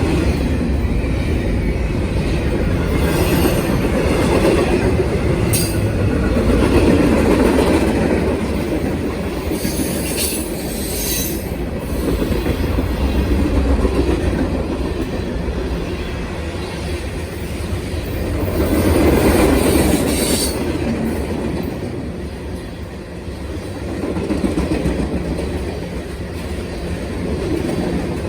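Norfolk Southern freight train rolling past, with a steady rumble and wheels clacking over the rail joints, swelling and fading as cars go by. Brief high wheel squeals come twice, about ten and twenty seconds in.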